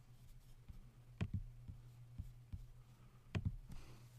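Faint computer mouse clicks over a steady low hum, with a louder pair of clicks about a second in and another pair past three seconds.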